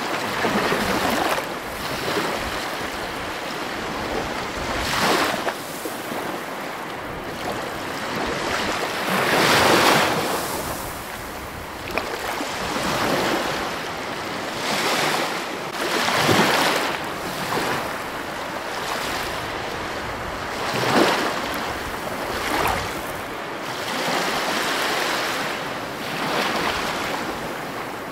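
Sea waves breaking and washing over rocks, with loud surges every few seconds over a steady rush of surf.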